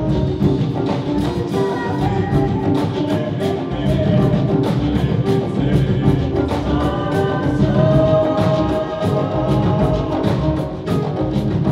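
Live African drum ensemble playing a steady beat, with a group of voices singing over the drums.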